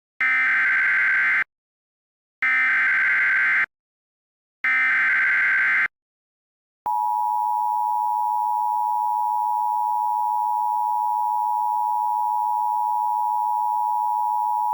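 Emergency Alert System start-of-message: three SAME header data bursts, each a harsh digital screech of about a second with a second of silence between, then the two-tone EAS attention signal held steady for about eight seconds. It announces a severe thunderstorm warning.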